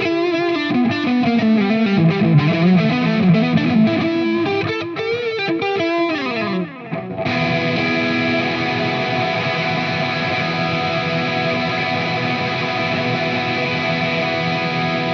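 Distorted electric guitar playing fast shred runs that climb and fall, ending in a slide down. About seven seconds in it strikes one long held chord that rings on.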